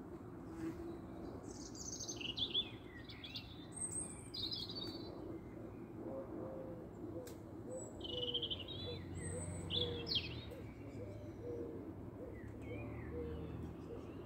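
Small birds singing: phrases of high, rapid warbling and trills, in two bouts, one early and one past the middle. Beneath them comes a run of short, low notes about once a second, over a steady low background hum.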